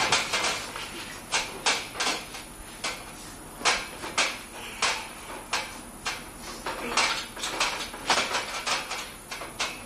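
Irregular sharp claps and knocks, several a second at times, mixed with short shouts during a bench press attempt.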